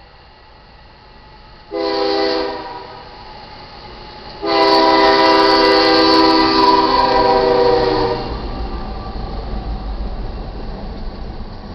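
GE ES44AC freight locomotive's air horn sounding the grade-crossing signal: a short blast about two seconds in, then a long, loud blast from about four and a half to eight seconds. The locomotive then rolls through the crossing with a low rumble of engine and wheels.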